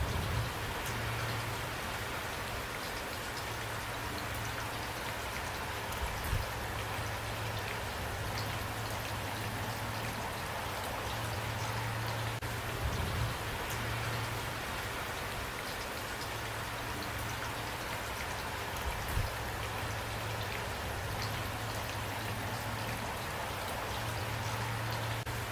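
Steady rain falling, an even hiss of many drops, with a few brief low thumps about 6, 13 and 19 seconds in.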